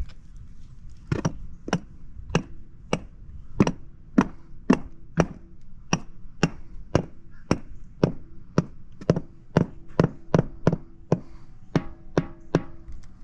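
Rubber mallet tapping pavers down to seat them level, in a steady run of knocks about two a second, starting about a second in.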